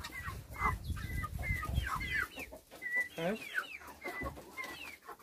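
A group of chickens clucking, with many short calls overlapping throughout, some held briefly on one pitch and others dropping in pitch.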